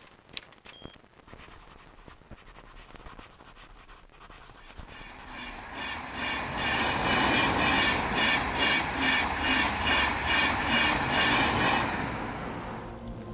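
A few faint clicks at the start, then a rhythmic clattering with a low rumble, repeating a few times a second. It builds up from about five seconds in, holds, and fades out near the end.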